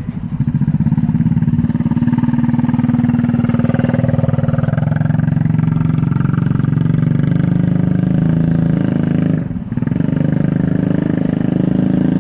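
An engine running steadily close by, with a brief dip in level about nine and a half seconds in.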